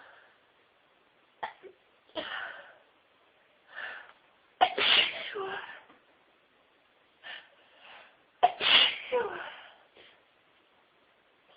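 A woman sneezing in a fit: quick catching breaths build to two loud sneezes, about five and eight seconds in, each trailing off.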